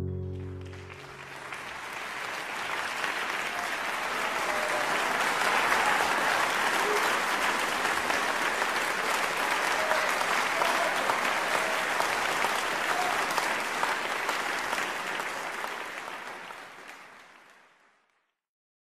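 Audience applause after the last notes of a live song recording: it swells over a few seconds, holds steady, then fades out near the end.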